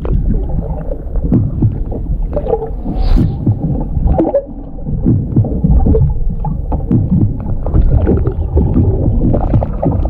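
Underwater sound picked up through a camera's waterproof housing: a loud, low water rumble full of irregular knocks, with short squeaky tones about three seconds in and again near the end.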